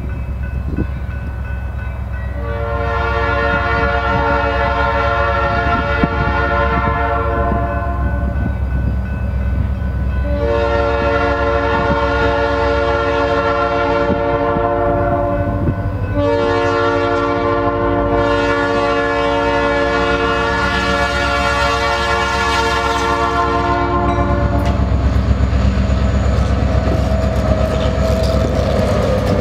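EMD diesel freight locomotive's air horn sounding three long blasts, a chord of several notes, for a grade crossing; the third blast is held longest. A low diesel engine rumble runs underneath, and near the end the locomotive passes close, engine and wheels on the rails loud.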